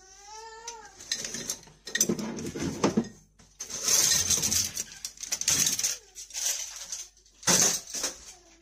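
Kitchen utensils and cutlery clattering in a plastic caddy as they are handled and set down on a stainless steel sink draining board, in a series of sharp knocks and rattles. A brief squeak rising and falling in pitch comes first.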